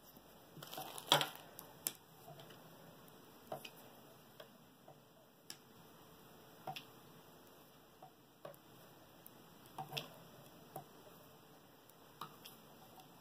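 Knitting needles clicking faintly against each other as stitches are worked: irregular single ticks every second or two, with a louder click about a second in.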